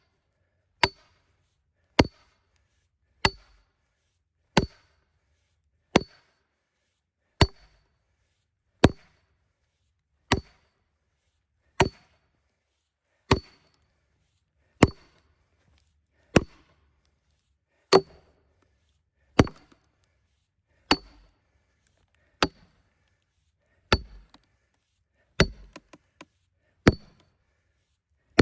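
Hammer blows on a steel wedge being driven into a knotty cedar log to split it into rails: about twenty metallic clinks with a short ring, one every second and a half. The log is splitting hard because of its knots.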